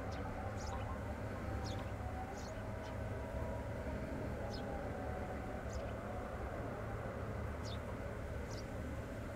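Outdoor ambience: a steady low rumble with a faint wavering tone in the middle, and short high-pitched chirps every half second to a second.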